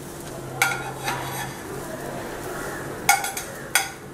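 Steel spatula knocking against a nonstick frying pan four times while toasting bread slices are turned, over a faint sizzle of the ghee-coated bread frying.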